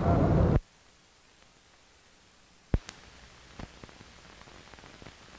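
A loud noisy sound cuts off abruptly about half a second in, leaving near silence. One sharp click comes a little before the middle, and a few faint ticks follow.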